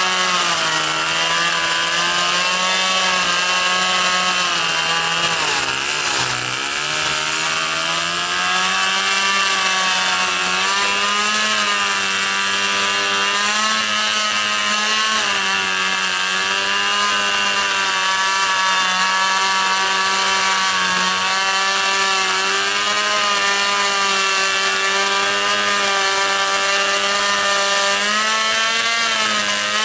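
Lewis Winch's small two-stroke gas engine running hard under load as it winches three stacked boats along the portage trail. Its speed dips sharply about six seconds in, then picks back up and holds steady, rising and falling slightly.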